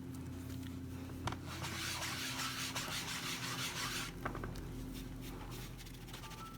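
Foam sponge rubbing ink through a stencil onto card stock: a soft, scratchy rubbing that swells for a couple of seconds in the middle, with a few light taps.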